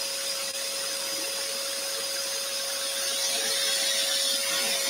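Scroll saw running steadily, its blade cutting through a wooden board fed in by hand.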